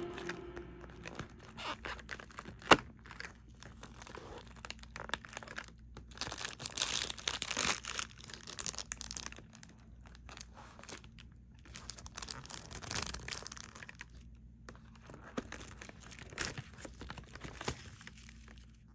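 Cardboard advent calendar door being pried and torn open with a fingertip, with a sharp snap a little under three seconds in. This is followed by scattered crinkling and rustling as the paper-wrapped chocolate tray is pulled out.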